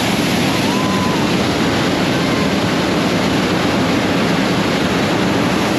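Hot-air balloon's double propane burner firing, a loud steady rush of burning gas as the flame heats the air in the envelope.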